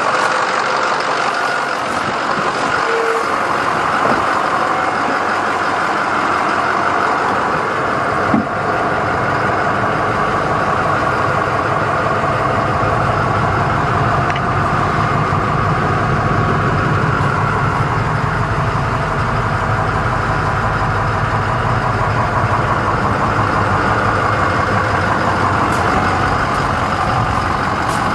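International DT466 diesel engine idling steadily, with a single knock about eight seconds in.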